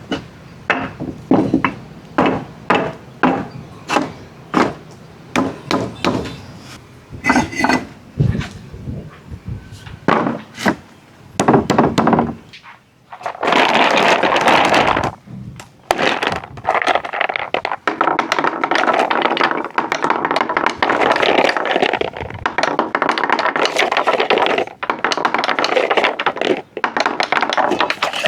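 Glass marbles on a wooden marble run: first a quick series of clacks, about two a second, as marbles knock through the track pieces. Then, about halfway through, a continuous rolling noise sets in as marbles run along the wooden track.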